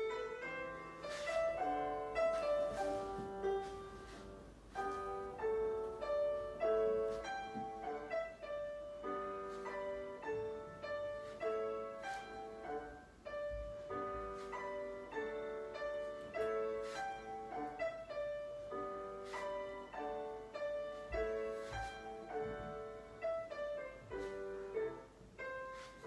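Piano playing classical-style music in a steady, even rhythm, the accompaniment for a ballet barre exercise.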